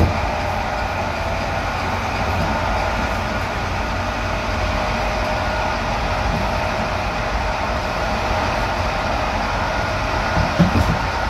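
EP07 electric locomotive moving with its train during shunting: a steady rumble of locomotive and wheels with a faint steady whine, and a few knocks near the end.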